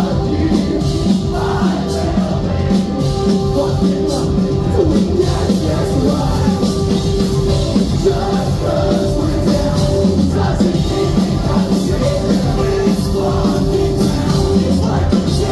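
Pop-punk band playing live at full volume: sung lead vocal over distorted electric guitars, bass and drums, heard from within the crowd.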